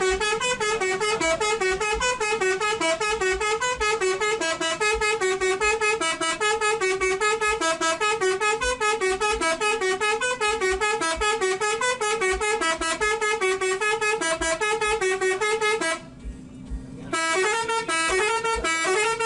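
Basuri 'telolet' multi-tone bus horn playing a fast, repeating melody of short stepping notes. It breaks off for about a second some sixteen seconds in, then starts up again.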